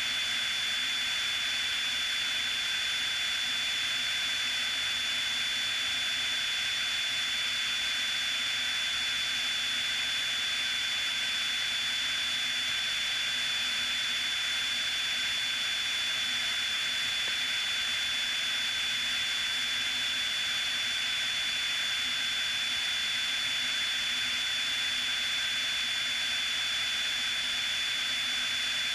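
Steady in-flight noise of a Piper Cherokee in cruise: its single piston engine and propeller drone mixed with airflow rush, with a steady high whine over it.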